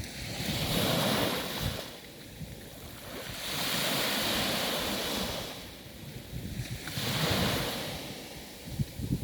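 Sea waves washing in: three surges of surf, each swelling up and fading away.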